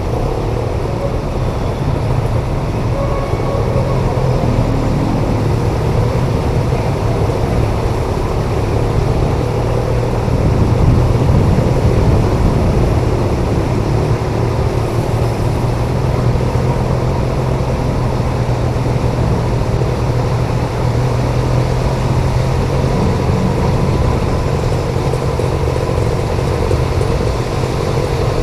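Motorcycle engine running at a steady pitch while riding through a flooded street, over a constant rush of tyres through water.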